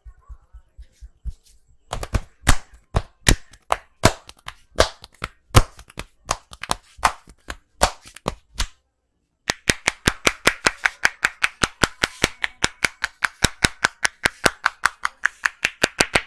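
Hands slapping and tapping on the head during an Indian head massage: loud irregular slaps at first, then, after a brief break, a fast even run of about five or six slaps a second.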